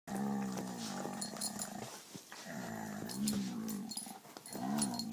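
A dog growling during rough play between a Dalmatian and a King Charles spaniel: three long, low growls, the last one shorter, each rising and falling in pitch.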